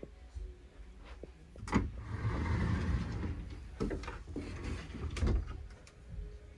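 A closet door being pushed open by hand: three sharp knocks spread through, and a brief rubbing slide about two seconds in, over a low rumble.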